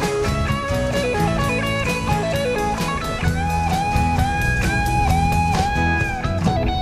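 Background music: an instrumental guitar passage in a blues-rock style over a steady beat, with held, bending lead notes repeated from about three seconds in.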